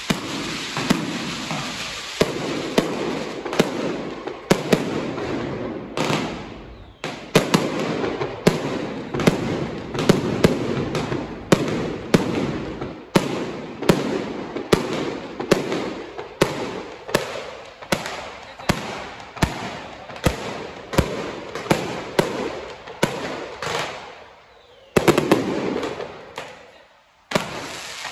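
Aerial fireworks going off overhead in quick succession: a long run of sharp bangs, roughly one or two a second, with a short lull near the end.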